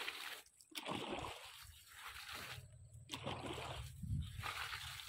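Water splashing in repeated bursts, roughly one a second.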